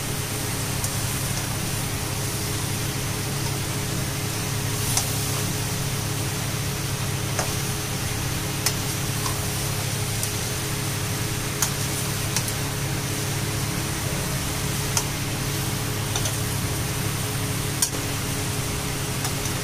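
Long metal spatula stirring chicken pieces and masala in a steel kadhai, with sharp clicks of the spatula against the pan now and then, over a steady machine hum.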